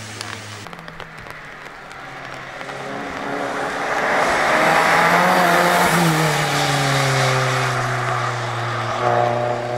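Turbocharged Opel Astra rally car engine running at high revs under load. It grows louder through the first half, and its pitch dips and climbs again.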